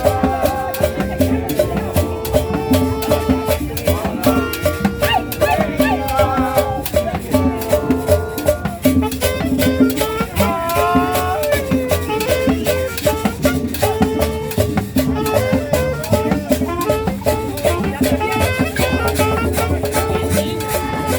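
Upbeat tropical Latin dance music with a steady shaker rhythm over bass and melody lines.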